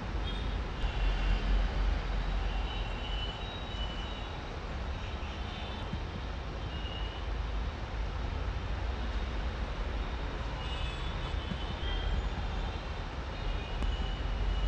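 Steady outdoor noise dominated by a fluctuating low rumble, typical of wind buffeting a microphone. Faint short high-pitched calls come through now and then.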